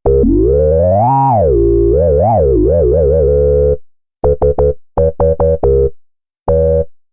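MES Mini Red software synthesizer playing a held note as its main oscillator is retuned: the pitch glides up, falls back, then wobbles up and down while a low sub tone stays put underneath. Then comes a quick run of short staccato notes at stepped pitches, and one more short note near the end.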